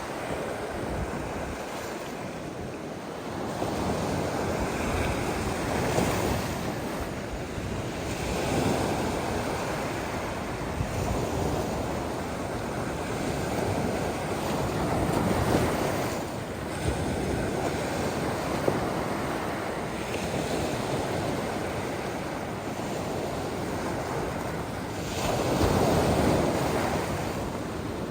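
Ocean surf: waves breaking and washing up the beach in rolling surges every few seconds, with the loudest surge near the end, and some wind buffeting the microphone.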